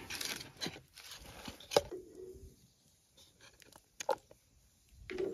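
Camp dishes being handled while serving chili. A bowl and spoon are rustled on a wooden table, then there is a sharp knock with a brief ring just under two seconds in, followed by softer clicks and scrapes of a serving spoon against the pot and bowl.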